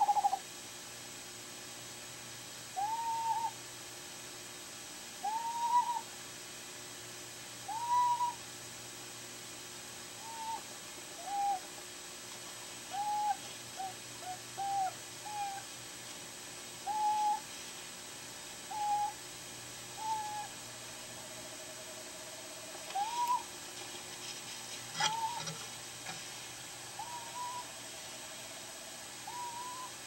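Eastern screech owl calling: short notes near 1 kHz that rise and fall, one every two or three seconds, with a fainter, longer, lower steady note twice in the background as the pair duets. A couple of sharp clicks about two thirds of the way in.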